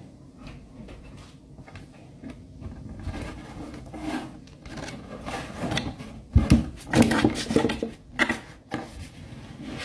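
A Bernese mountain dog nosing at a phone lying on a wooden table, with rubbing and knocking against the handset that grows louder and is heaviest about six to eight seconds in.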